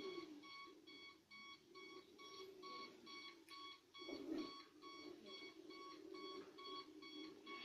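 Self-balancing hoverboard giving a rapid warning beep: short, evenly repeated electronic beeps, nearly three a second, over a faint low hum.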